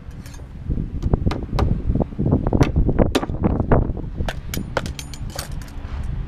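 Wooden wall plates knocking and clattering as they are handled, lifted off sawhorses and set down on a plywood sheet: a quick, uneven series of wooden knocks over low wind rumble on the microphone.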